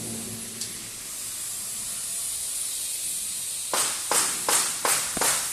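TIG welding arc hissing steadily with a high-pitched hiss, then five short, louder bursts of hiss in quick succession, about 0.4 s apart, near the end.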